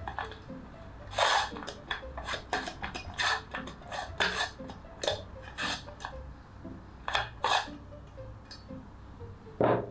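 Pink pastry brush swept around the inside of a round metal cake pan, greasing it with butter: a run of short, irregular brushing scrapes against the metal, at times several a second, with a louder stroke near the end.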